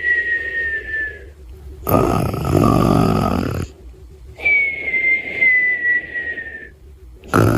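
Cartoon-style snoring: a rough, rasping snore alternating with a long whistle that slides slightly down in pitch. A whistle dies away near the start, a rasp comes about two seconds in, another long whistle follows, and a second rasp begins near the end.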